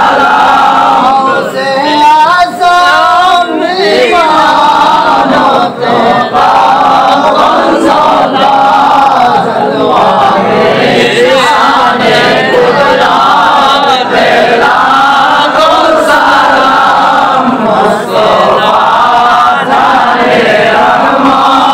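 A group of men chanting an Islamic devotional milad recitation together, loud and continuous, with the voices running on without pause.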